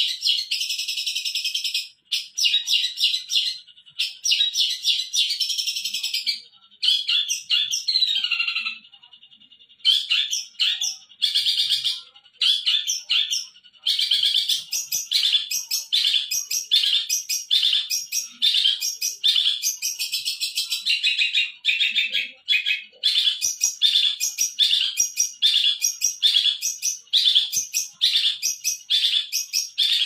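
Long-tailed shrike (cendet) singing a fast, continuous chattering song of rapidly repeated high notes, with a brief lull about nine seconds in.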